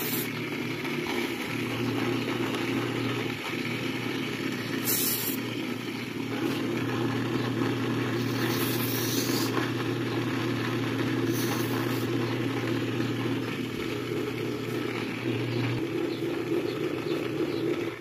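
Tron fan's electric motor running with a steady hum, its worn, seizing bearing just sprayed with lubricant to free it; the hum stops about two seconds before the end. Short hisses of the spray can at the start and a few times after.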